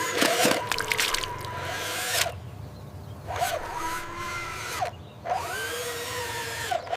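Small electric motor of a radio-controlled toy vehicle whining, its pitch rising and then falling in several arcs as it speeds up and slows down. There is scraping and crunching in the first couple of seconds.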